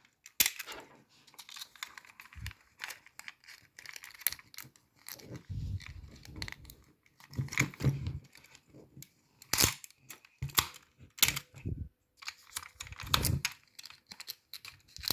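Hands loading film into a Canon Canonet 28 rangefinder: irregular clicks, ticks and rustling as the film leader is fed into the take-up spool and the camera's parts are worked, with a few louder clicks in the second half.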